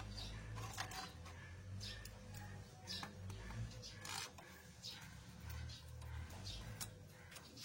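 Faint, scattered light clicks and rustles, a few a second, over a low, uneven hum.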